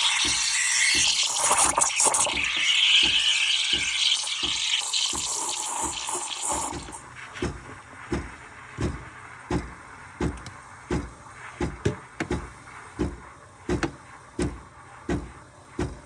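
Espresso machine steam wand frothing milk in a stainless steel pitcher: a loud steam hiss for about the first six and a half seconds, then much quieter. A steady low pulsing, about three beats every two seconds, runs underneath and is plain once the hiss drops.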